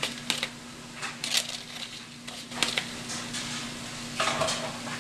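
A metal spoon scraping and tapping frozen grated coconut out of a container into a pan, a string of light clicks and scrapes, with a louder scraping rustle near the end. A steady low hum runs underneath.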